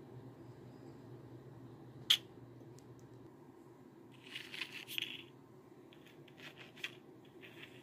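A plastic bottle cap clicks sharply once against a wooden tabletop about two seconds in. Around four and a half seconds there is a short scraping rub, like the cap sliding across the table, and a few light taps follow near the end.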